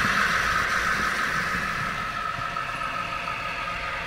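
A model V60 diesel shunter and its freight wagon running on the layout track: a steady whirring run of motor and wheels on rails, growing gradually quieter as the train moves away.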